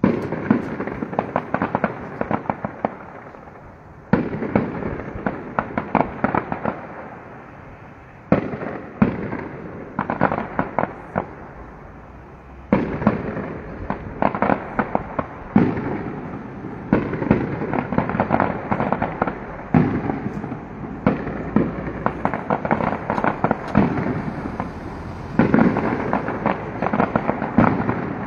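Fireworks display: aerial shells bursting in repeated volleys of sharp bangs with dense crackling. Each wave starts suddenly, every few seconds at first, then runs almost without pause.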